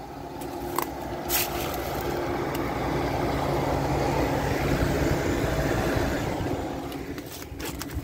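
Window air conditioner humming steadily. Over it, a passing vehicle's noise swells over several seconds and fades away near the end.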